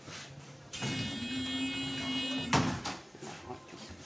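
A transit vehicle's sliding doors closing: about two seconds of hiss with a steady tone, ending in a loud thud as they shut.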